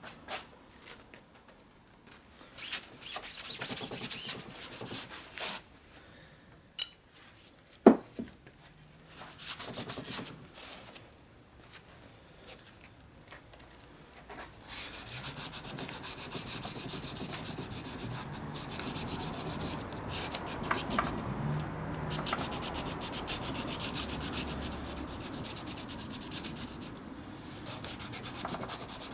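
Rust being scrubbed off old mini-lathe metal parts by hand with an abrasive, fast back-and-forth rubbing strokes that become steady from about halfway through. Before that come scattered scrapes and handling knocks, with a sharp clack about eight seconds in.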